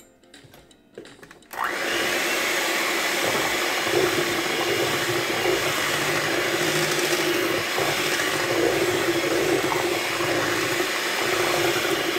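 Electric hand mixer switching on about a second and a half in and running steadily, its beaters churning liquid pumpkin pie filling in a stainless steel bowl.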